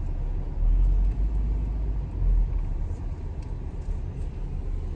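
Steady low rumble of a moving car, heard from inside the cabin, with louder swells about a second and two seconds in.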